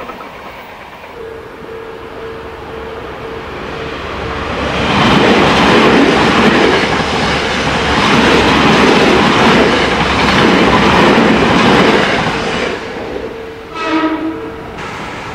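Tokyo Metro 6000-series electric train running over a level crossing. Its wheels clatter over the rails, loudest for about seven seconds in the middle, while the crossing's warning bell rings as a steady tone. A brief horn-like tone sounds near the end, after the train has passed.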